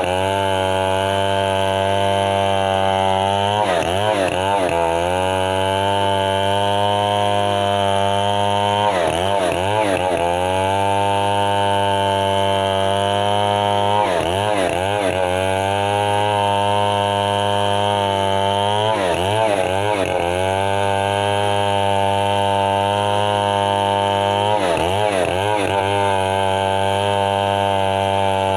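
Stihl MS 070 large two-stroke chainsaw running at high revs without pause. Its pitch briefly sags and recovers about every five seconds.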